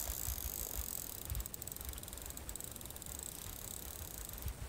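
A fishing reel mounted on a hammer slingshot ticking rapidly as line is wound in, starting a little over a second in and stopping shortly before the end. A steady high hiss and low rumble on the microphone run under it.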